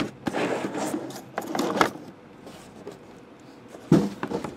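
Sealed metal card tins handled out of a cardboard case: rubbing and scraping against the cardboard for the first couple of seconds, then a knock about four seconds in as a tin is set down on the stack, with a few light clicks after.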